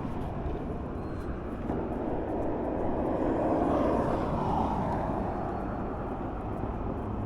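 Road traffic noise: a steady rush with one vehicle passing, swelling louder about three to five seconds in and then fading.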